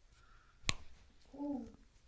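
A single sharp click, then about half a second later a short, low hummed 'mm' from a person.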